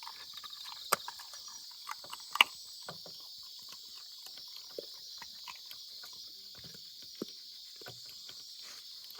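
A German shorthaired pointer chewing food, with irregular short crunches and clicks. The loudest crunch comes about two and a half seconds in.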